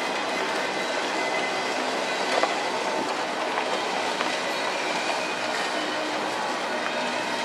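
Loaded double-stack container well cars of a Union Pacific freight train rolling past at slow speed. The steel wheels make a steady rumble and clatter over the rail, with a sharper knock about two and a half seconds in.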